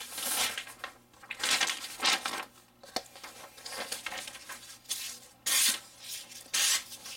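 Hollow-ground CRKT fixed-blade knife slicing through a sheet of paper in several short hissing cuts: a sharpness test of the factory edge.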